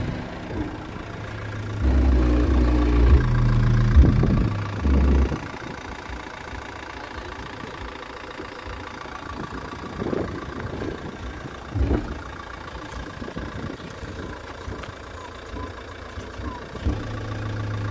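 Opel Corsa's 1.7 Isuzu turbodiesel engine idling, louder for a few seconds early on, with a couple of brief louder moments later.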